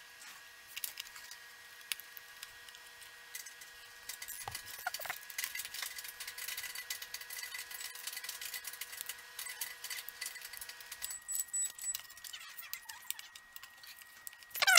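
Small plastic LEGO pieces being handled and snapped together: a scatter of light clicks and ticks, thickest from about four seconds in, over a faint steady electrical hum that cuts out about eleven seconds in.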